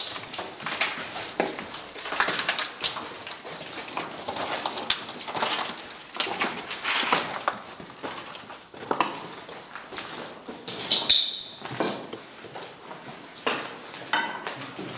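Footsteps crunching and scraping over debris on a concrete floor, irregular steps, with a brief high-pitched squeak about eleven seconds in.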